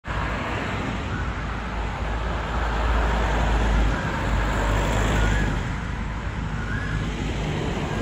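Steady road traffic noise with a low rumble that swells between about two and a half and five and a half seconds in.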